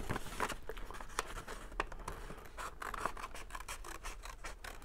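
Scissors snipping through a paper envelope in a run of small, irregular cuts, working round a curve.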